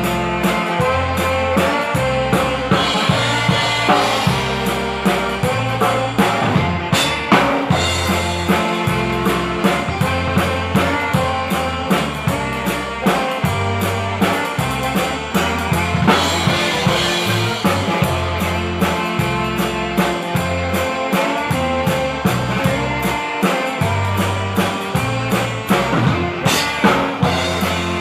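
Texas Czech dance band playing live, with drum kit and bass keeping a steady beat under the band.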